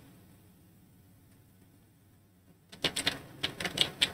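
Computer keyboard keys clicking as a word is typed: a quick run of about eight keystrokes starting nearly three seconds in.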